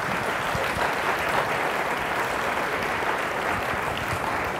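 Audience applauding: steady, dense clapping from a large crowd.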